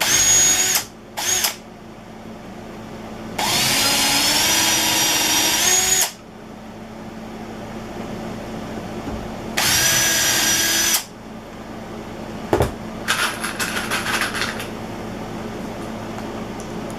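Electric hand drill pre-drilling pilot holes in wood: two short bursts, then a run of about three seconds that rises in pitch near the end, and another run of over a second. A single knock follows, then light rattling for a second or two.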